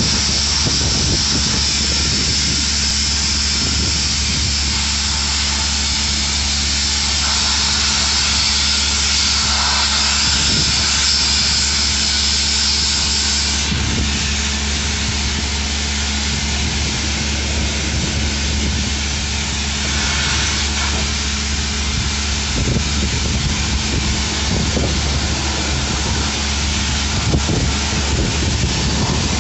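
Machinery of a sludge-cleaning robot running steadily: a constant low hum under loud hiss. The highest part of the hiss cuts off suddenly about halfway through.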